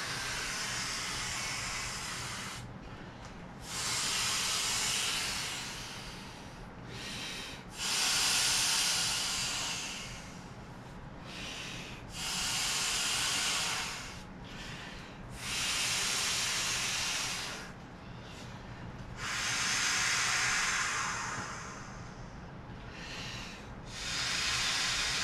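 Breaths blown by mouth into the valve of an inflatable Aeromax F-35 toy jet: a hissing rush of air about two seconds long, seven times over, with quieter breaths drawn in between.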